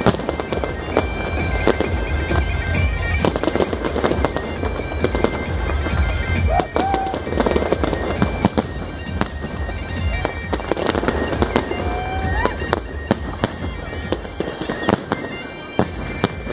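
Fireworks bursting in rapid succession, dense bangs and crackles throughout, over bagpipe music with steady held notes.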